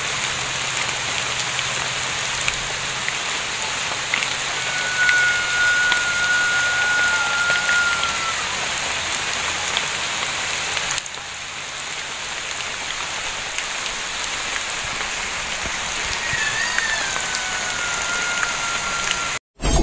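Steady rain falling, with two long, shrill whistling calls at one held pitch: the first about five seconds in, lasting some three seconds, the second near the end, starting higher and wavering before it settles. The recording cuts off abruptly just before the end.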